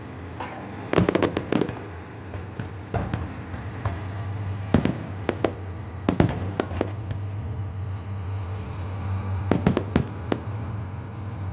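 Aerial fireworks bursting in sharp bangs and crackles: a fast volley about a second in, scattered single bangs through the middle, and a quick group of reports near the end, over a steady low rumble.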